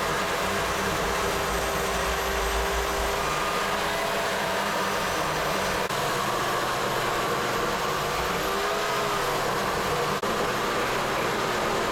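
Gas chainsaw running under load, ripping lengthwise through a wet walnut log. It is a steady, unbroken cutting sound whose engine pitch wavers a little as the bar bites.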